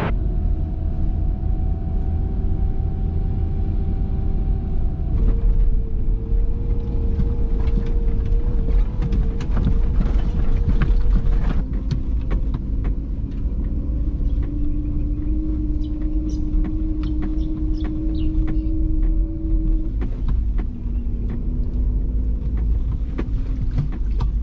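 4WD driving over a rough sandy track, heard from inside the cabin: a steady engine note and low road rumble, with the engine pitch stepping up and down several times, and frequent rattles and knocks as the vehicle bumps over the ruts.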